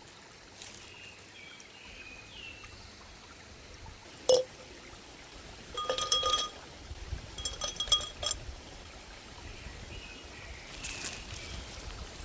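A sharp tap about four seconds in, then two short runs of ringing clinks from cookware or utensils being handled, with faint bird chirps in the background.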